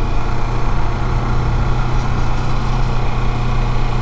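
Motorcycle engine running at a steady speed while riding, a constant low drone.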